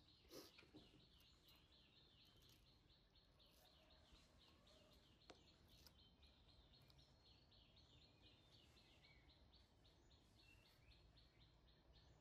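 Faint, rapid, evenly repeated chirping of a small bird, about three high chirps a second, over low room noise. A single sharp click sounds about five seconds in.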